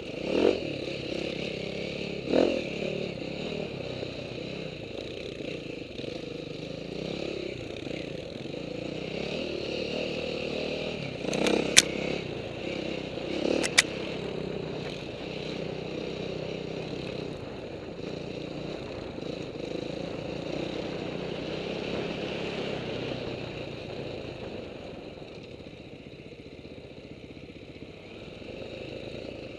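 Dirt bike engine running and revving up and down, picked up by a helmet-mounted camera with a steady rush of wind and noise. A few knocks come through, and the two sharpest cracks, the loudest sounds, fall near the middle.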